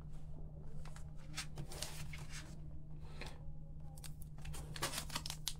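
Rustles and small clicks from a Topps Turbo Attax trading card pack's wrapper being handled, getting busier near the end, over a low steady hum.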